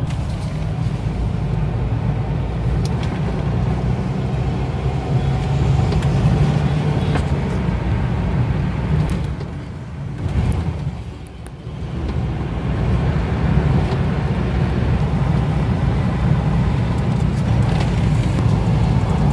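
Steady road and engine noise of a Mahindra Scorpio SUV driving along a highway, heard from inside the cabin. The noise drops briefly about ten seconds in, then returns.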